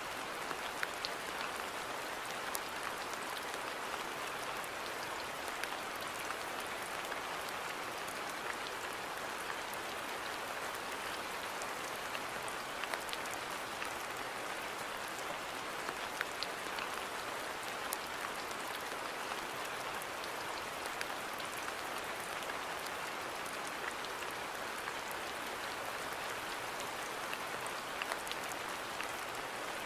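Steady rain falling on a garden, an even patter with many individual drops ticking sharply on top.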